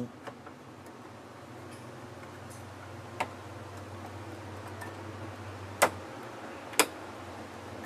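Sharp plastic clicks as the air conditioner indoor unit's air deflector strip is snapped into place: a faint one about three seconds in, then two louder ones about a second apart, over a steady low hum.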